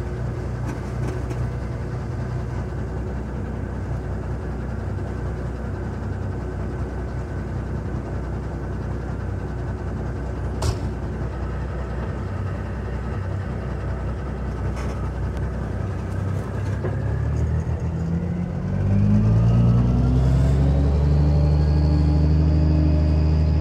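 Semi truck's diesel engine idling, with one sharp click about halfway. Near the end the engine revs up and pulls away, getting louder, its pitch rising as the truck accelerates.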